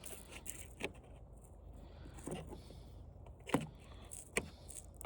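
A few sparse light clicks and knocks, about four spread over several seconds, from a flat-screen TV's parts being handled and pried at while a component is worked loose.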